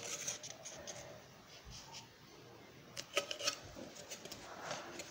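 Faint handling noise: soft rustling with a few light clicks and taps about three seconds in, as hands and the phone move around.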